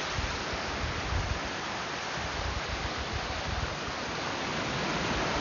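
Rocky mountain brook running over stones and small cascades: a steady rush of water, growing a little louder near the end.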